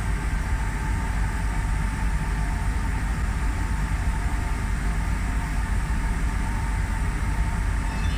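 Powder-coating booth machinery running with a steady low rumble and a faint even hum.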